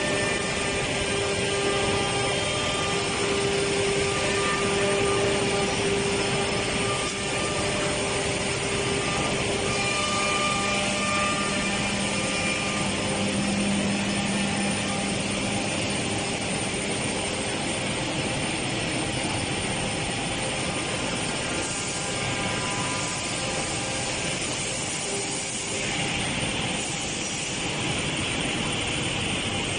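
Woodworking production machinery running steadily, a constant mechanical hum with several steady tones over a noisy background.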